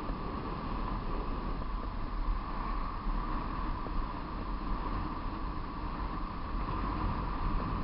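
Steady wind rushing over the microphone of a camera riding downhill, with a constant low rumble from the moving vehicle and road.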